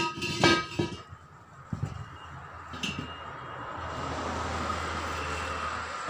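Metal-on-metal clanks with a bright ringing tone: three strikes in the first second, then a few lighter knocks. After that a steady rushing noise with a low hum builds through the last couple of seconds.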